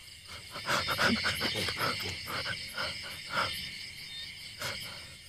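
A run of short, irregular, growl-like rasping pulses lasting about three seconds, over a steady high chirring of crickets and insects.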